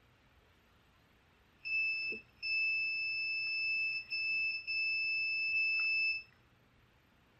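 Multimeter continuity beeper sounding a steady high-pitched tone for about four and a half seconds, starting about a second and a half in, with a few brief breaks. The beep signals a closed circuit between the switch wires being probed.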